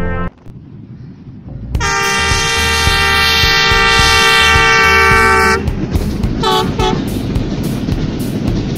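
Diesel locomotive horn sounding one long chord of about four seconds, then two short toots, followed by the passenger train running past with a steady rumble and a regular clatter of wheels.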